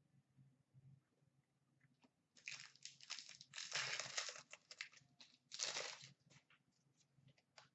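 Foil trading-card pack wrapper being torn open and crumpled: irregular crackling and crinkling, starting about two and a half seconds in and lasting about four seconds.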